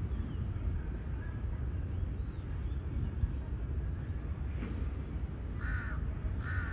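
A crow cawing twice, two short harsh calls less than a second apart near the end, over a steady low rumble.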